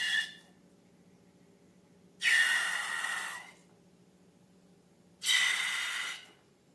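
Short bursts of air hissing through a narrow opening, each with a faint steady whistle: one ends just after the start, then two more each last about a second, a few seconds apart.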